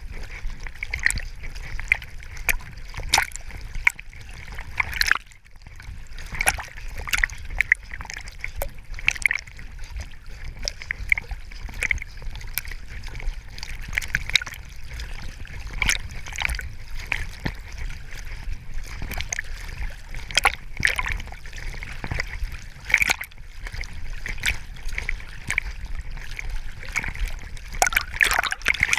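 Choppy water splashing and sloshing against a camera riding at the waterline on a swimming Labrador retriever: a quick, irregular run of short splashes over a steady low rumble of water buffeting, briefly dropping away about five seconds in.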